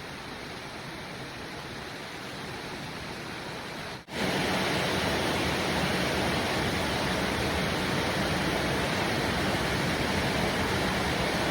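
Heavy rain falling, a steady hiss. About four seconds in it cuts abruptly to a louder, denser downpour.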